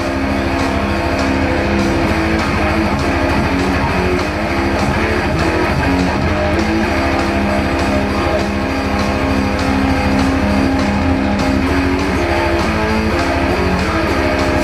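Instrumental passage of a metal song: electric guitar playing long held chords over a dense, steady backing, with no singing.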